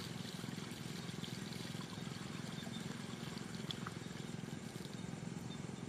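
Small diesel engine driving an irrigation water pump, running steadily, with the sound of water flowing.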